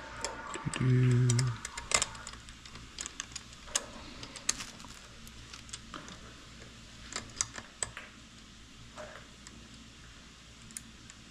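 Small metal parts clicking and tapping irregularly as hands fit screws and nuts to a chrome motorcycle passing-light bracket. About a second in there is a short, low, voice-like hum, the loudest sound here.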